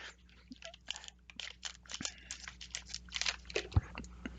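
Packaging crinkling and crunching in the hands, with scattered small clicks and rustles.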